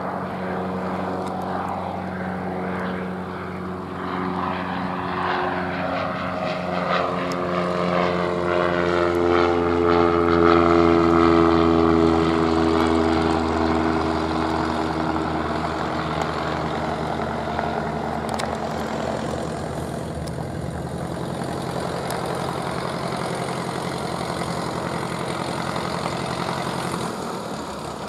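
Light single-engine, low-wing piston propeller plane climbing out after takeoff and flying past. The engine and propeller drone swells to its loudest about ten seconds in, falls in pitch as the plane passes, then carries on more steadily as it climbs away.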